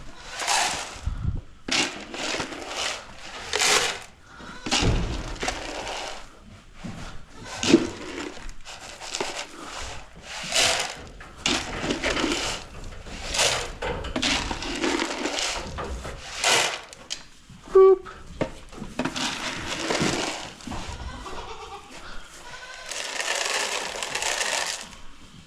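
A herd of goats and sheep bleating over and over, calling for their evening grain. Two sharp knocks stand out, one about a third of the way in and one about two thirds in.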